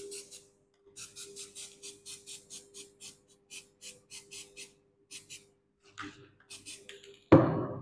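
Aerosol can of magnetic particle spray being shaken, its mixing ball rattling in quick regular clicks, about three or four a second, over a steady hum from the switched-on electromagnetic yoke. A sudden louder burst of noise comes near the end.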